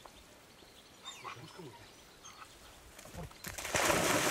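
A German wirehaired pointer leaping off the bank into a pond: a loud splash and churning water starting about three seconds in, after a few faint short sounds.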